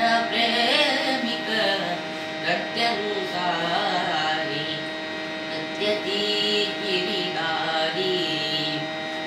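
A boy singing a Carnatic song in raga Sindhubhairavi, with long held and ornamented notes broken by short pauses, over a steady drone.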